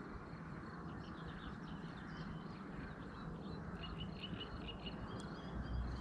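Small birds chirping faintly over a steady low background noise, with a quick run of repeated high chirps about four seconds in.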